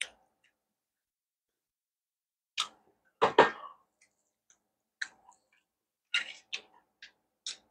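Close-miked eating sounds: one loud short mouth sound a little after three seconds, then light clicks of chopsticks against the stainless steel plate as noodles are picked up.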